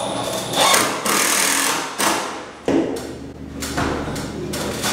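A 12-volt Milwaukee cordless impact driver hammering as it drives screws into a wooden frame, in several runs, the first about two seconds long and the later ones shorter.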